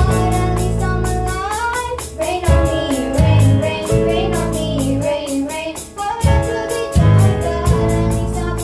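Children's band playing a pop song: two girls singing together in unison over electric bass and electronic drums keeping a steady beat.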